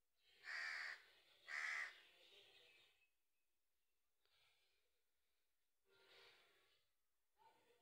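A crow cawing: two loud caws about a second apart, then two fainter calls in the second half.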